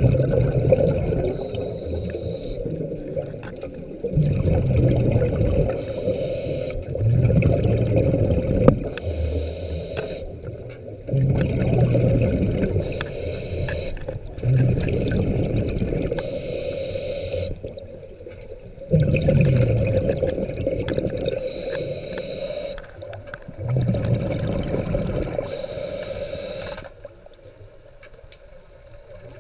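Scuba diver breathing through a regulator underwater: a hiss on each inhale and a rush of exhaled bubbles, repeating every few seconds. The breathing drops away near the end.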